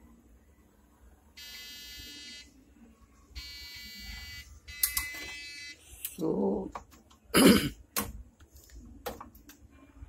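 A desktop PC's motherboard beeper sounding its startup beep code, long electronic beeps about a second each, repeating: the sign that the RAM is not being detected, which the owner takes for a module not seated properly. Handling knocks and thumps on the metal case follow, the loudest about seven and a half seconds in.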